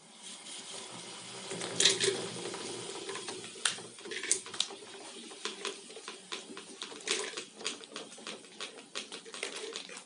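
Lightweight line-retriever spool spinning as it pulls in 6 mm rope. It gives a steady whir and rapid, irregular clicking and rattling as the line runs in and winds onto the drum, loudest about two seconds in and again around seven seconds.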